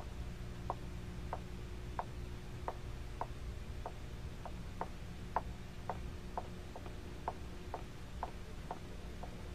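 Comic tiptoe sound effect: a steady series of light ticks, about two a second, keeping time with sneaking steps, over a low steady hum.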